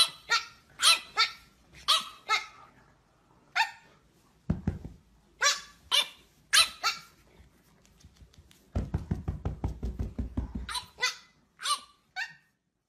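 French bulldog puppy barking in short, high-pitched yaps, over and over in quick clusters. A low, rapidly pulsing rumble fills about a second and a half in the second half, between the yaps.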